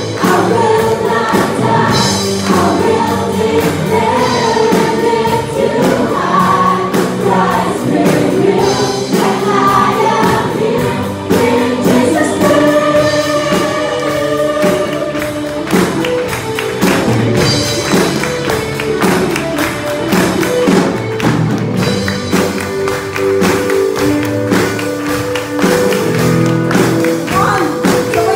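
A group of worship singers singing a gospel praise song together into microphones over backing music with a steady beat.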